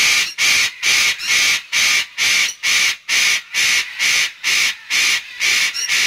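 A parrot calling loudly and harshly over and over, in an even rhythm of about two and a half screeches a second.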